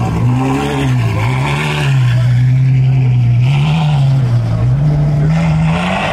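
Ferrari F12's V12 engine pulling away at low revs. Its note holds steady, then rises and falls a few times as the throttle comes on and off.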